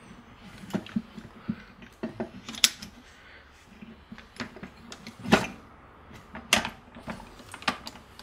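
Irregular metallic clinks and knocks from a Peugeot BE4 gearbox's gear shaft assembly and shift forks being worked down into the gearbox casing by hand: about eight or nine sharp strikes, the loudest a little past halfway.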